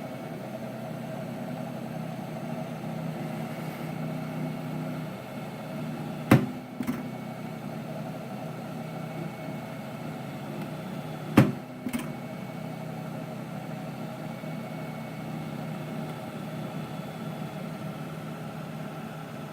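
Ecopro 2 disc repair machine running its polishing cycle on a scratched CD, a steady motor hum. Two sharp clicks, about five seconds apart, each followed by a softer click half a second later, stand out over the hum.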